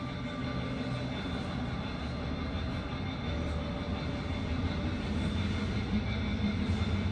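Video installation soundtrack playing in the gallery: a steady low drone with a few held tones, slowly growing louder.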